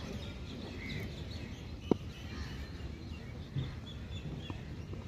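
Small birds chirping over steady open-air background noise, with a single sharp knock about two seconds in.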